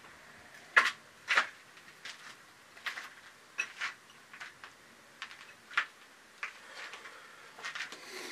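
Irregular short scuffs and knocks, one or two a second, of a person walking on a gritty stone floor and handling things; the two loudest come about a second in.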